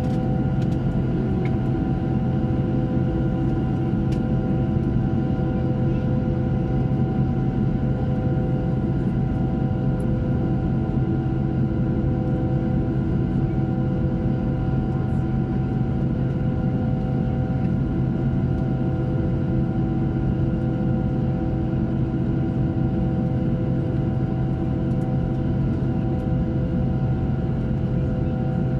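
Steady drone inside a Boeing 737 passenger cabin on the ground: a low hum with several held, unchanging tones above it, from the aircraft's air and power systems running before takeoff.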